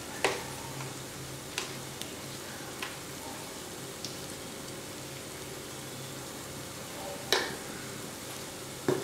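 Faint steady sizzle of sliced onions cooking in a clay pot, over a low hum. Scattered light clicks and taps of a spoon as chilli powder is added, the loudest about seven seconds in and just before the end.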